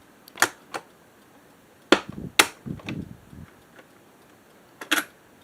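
Mechanical clicks and clunks of an old cassette deck's controls and a cassette being handled: a few sharp clicks, a louder clunk about two and a half seconds in with a short rattle after it, and a pair of clicks near the end.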